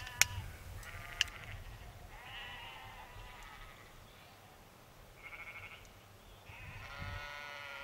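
Farm livestock calling: three drawn-out calls, about two, five and seven seconds in, the last the longest. A sharp click about a second in.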